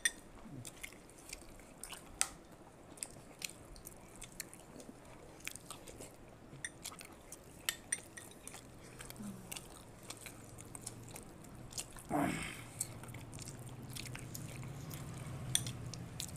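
Close-up chewing and eating of fried South Indian snacks, with scattered sharp crunches and clicks throughout and one brief louder sound about twelve seconds in.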